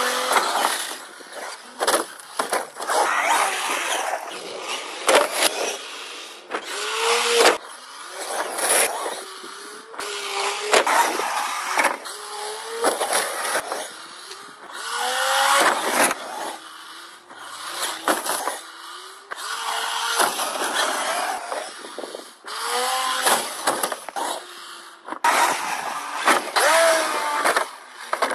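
Traxxas short-course RC truck's motor revving up and down in repeated rising and falling glides, over gravelly crunching of tyres on dirt and sharp knocks as it lands from jumps.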